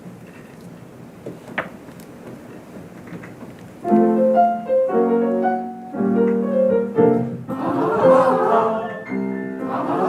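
Piano starts playing rhythmic block chords about four seconds in, after a few seconds of low room noise; choir voices join near the end.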